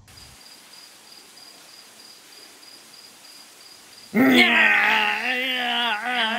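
Faint crickets chirping steadily against a quiet outdoor background. About four seconds in, a loud, drawn-out wavering note begins, either a voice or an instrument, and it rises slightly in pitch.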